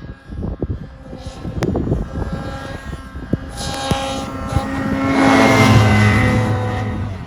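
Ski-Doo 850 Turbo snowmobile's two-stroke engine running under throttle through its exhaust. It is choppy and uneven for the first couple of seconds, then builds to a loud, steady pull about five seconds in and eases off near the end.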